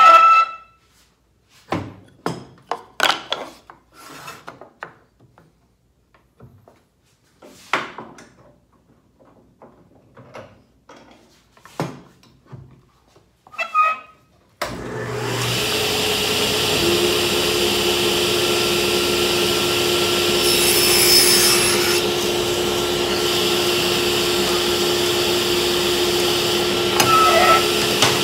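Clacks and knocks of wood and metal as boards and a spacer block are handled at a table saw fence. About halfway through, a workshop machine starts suddenly and runs steadily with a whirring hum.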